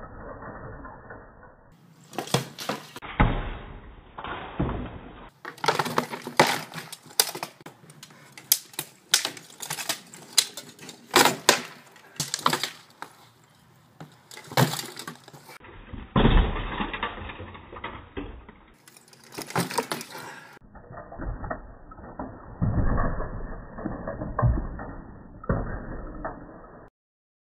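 Sparring with steel swords and a wooden round shield: a fast run of sharp clashes and knocks of blade on blade, shield and armour in the middle. Before and after it the same blows are slowed down, so they sound low, muffled and drawn out.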